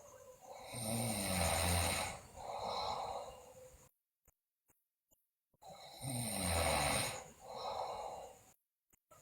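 A sleeping girl snoring loudly, two snores about five seconds apart. Each is a low, rough rattle followed by a softer, breathier sound, with dead silence between the snores.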